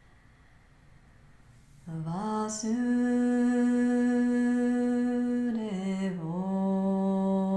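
A woman humming a slow devotional chant melody in long held notes. It starts about two seconds in after a quiet pause, slides up into a long steady note, dips briefly, then settles on a slightly lower held note.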